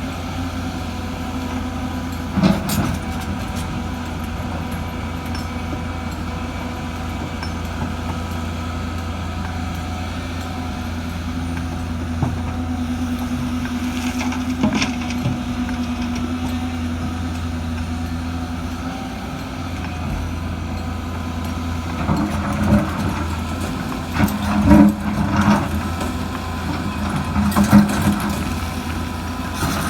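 Diesel engine of heavy construction machinery running steadily, with a few short knocks and a cluster of louder bursts in the last several seconds.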